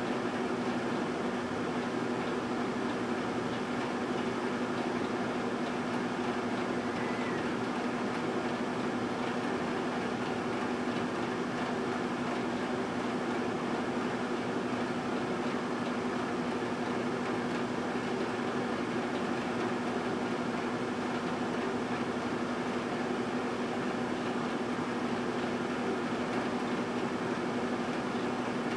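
A 1978 GE Dual Wave microwave oven running mid-cycle: a steady hum with fan noise, unchanging in level.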